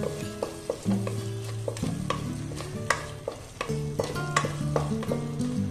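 A wooden spatula stirring and scraping a thick tomato masala frying in a pan, with sizzling and frequent sharp scrapes against the pan. Background music with held chords plays under it.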